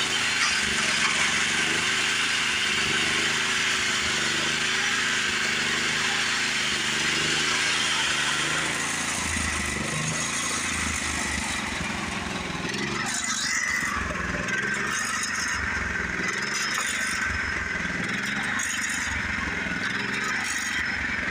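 Homemade chainsaw-bar sawmill running under a small engine while its chain cuts through a sugar maple log. The dense cutting noise thins out about 12 seconds in, with the engine still running.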